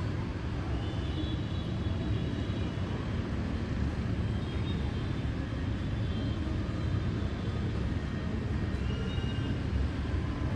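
Steady low rumble of city traffic, motorbikes and cars on wet streets heard from high above and blended together, with a few faint high tones now and then.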